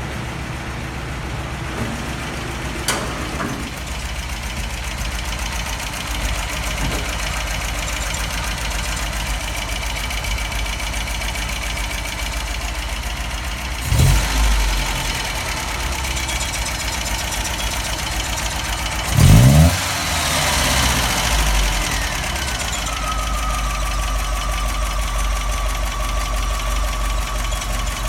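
1979 MGB's 1.8-litre four-cylinder engine idling steadily, blipped up in revs twice, about halfway through and again a few seconds later. A high whine glides down and then holds steady near the end.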